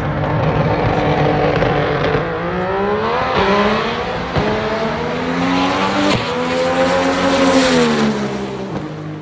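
Race car accelerating hard, its engine note climbing and dropping back with each of three upshifts, then falling in pitch as it goes past.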